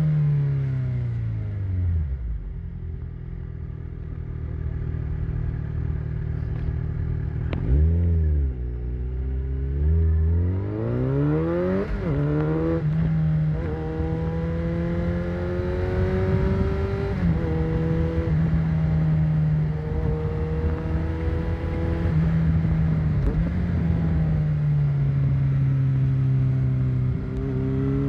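Motorcycle engine heard from the rider's seat, over a low rushing noise. Revs fall at first, then there is a quick throttle blip, then the bike accelerates with the pitch climbing steeply. It holds fairly steady revs with small changes, then eases off near the end.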